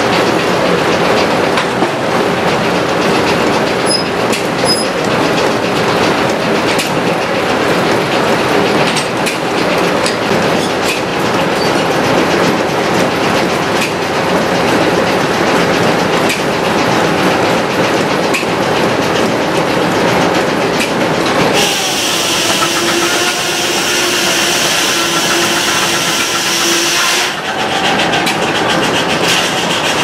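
Circular sawmill running, belt-driven from a traction engine: the blade, drive and log carriage make a loud, steady mechanical clatter. For about six seconds near the end a steadier, higher-pitched tone rises above it.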